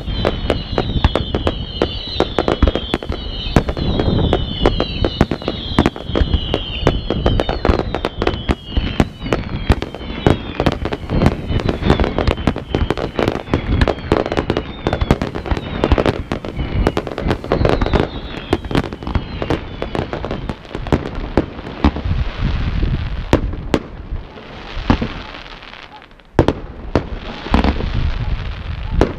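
Fireworks display: a rapid barrage of bangs and crackling bursts, overlaid for the first several seconds by many falling whistles from whistling shells, which return briefly a little past halfway. Near the end the barrage thins, then a sharp bang sets off a fresh spell of crackling.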